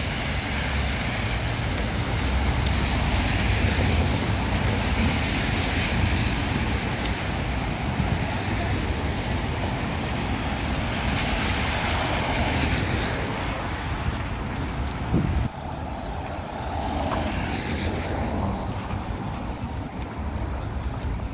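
City street traffic on a rain-wet road: cars passing with a steady hiss of tyres on wet pavement, swelling and fading as they go by. The level drops suddenly about fifteen seconds in.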